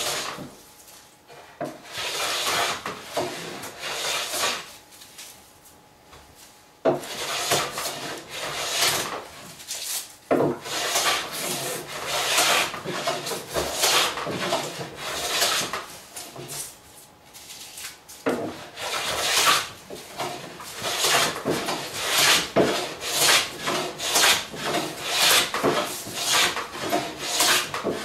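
A No. 4 bench plane taking shavings off the edge of wooden door cladding, in repeated push strokes about one or two a second. It pauses briefly twice, about five seconds in and again around sixteen seconds.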